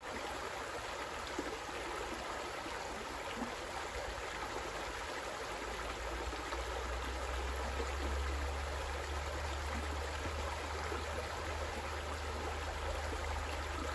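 Shallow river running over a stony riffle: a steady rushing babble of water. A low rumble builds up under it about halfway through.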